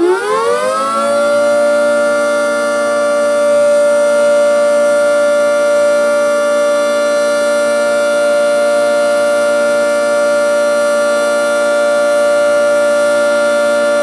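Federal Signal 3T22 three-tone tornado siren finishing its wind-up about a second in, then sounding a steady chord of several tones.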